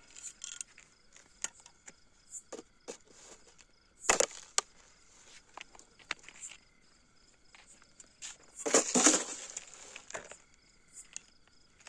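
Scattered clicks and knocks from a plastic jar and a metal snake hook being handled on gravelly ground while a baby cobra is let out, with a louder knock about a third of the way in and a longer scraping rustle about three-quarters through.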